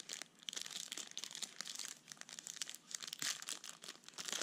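Foil wrapper of a Panini Prizm trading-card pack crinkling and crackling as it is handled in the hands.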